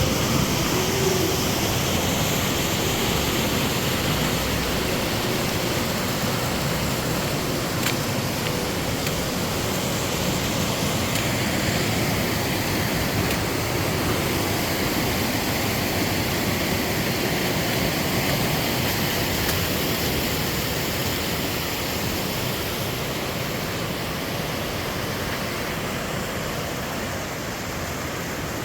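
Fast-flowing water rushing steadily, as from a mountain stream or waterfall.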